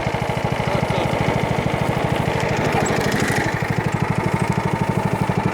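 Riding lawn mower engine running steadily at a constant speed, its exhaust pulses coming as an even, rapid chug.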